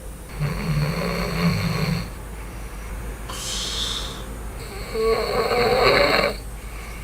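A man snoring in his sleep while wearing a nose-plug anti-snoring device: two loud snores about four seconds apart, with a hissing breath between them. The snores come as his airway closes on the in-breath, a sign the device is not keeping it open.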